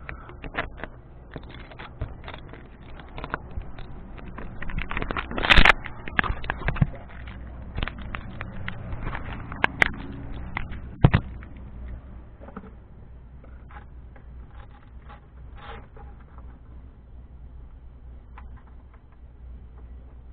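Handling noise on a model airplane's onboard camera as the plane is handled and carried: scraping, rubbing and clicking, with a sharp knock about five and a half seconds in and another about eleven seconds in, quieter after that.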